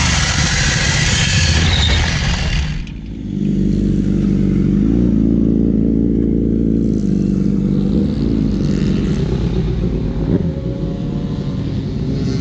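A motor vehicle engine running: a loud rushing noise for about the first three seconds stops abruptly, leaving a steady engine drone whose pitch shifts in small steps.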